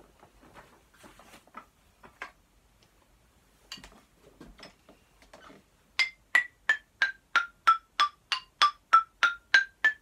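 Children's xylophone struck with a wooden mallet. After a few faint knocks, about six seconds in it plays a scale of single notes, about three a second, stepping down in pitch and then back up.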